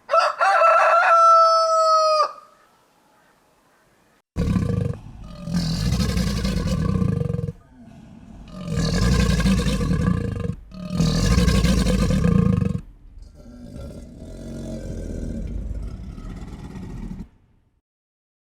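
A rooster crowing once, a sustained call of about two seconds. After a short gap comes a series of deep, rough roars from a large animal: four long bursts with short breaks between them, the last one weaker.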